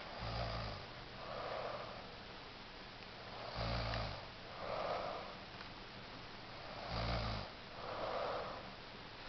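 A man snoring in his sleep: three low, rasping snores on the in-breath, about three seconds apart, each followed by a softer airy breath out.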